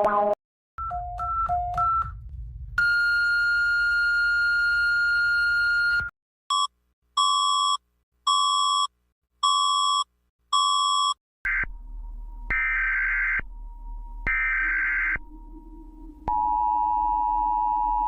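A sequence of electronic warning signals. First short alternating high-low beeps, then a long steady tone, then five beeps about a second apart, then three short buzzy bursts over a low hum, ending in a steady two-note tone.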